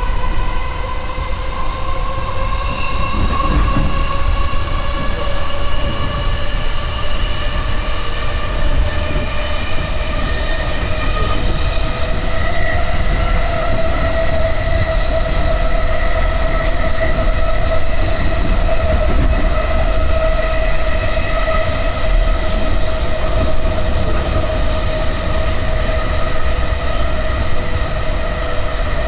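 Musashino Line electric commuter train pulling out and accelerating, heard from inside the carriage. Its motor whine rises slowly in pitch over about the first dozen seconds, then holds steady as the train runs at speed, over a constant low rumble of wheels on the rails.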